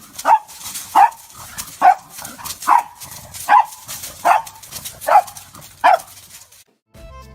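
A dog barking eight times in a steady rhythm, a single bark a little under once a second.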